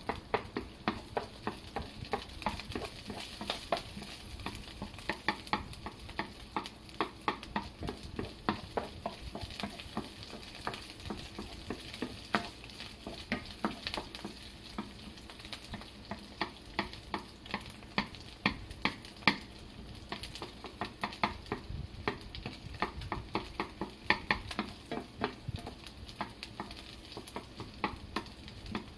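Wooden spatula scraping and knocking against a non-stick frying pan while stirring small pieces of food that sizzle in the oil: a quick, irregular run of clicks and scrapes over a steady sizzle.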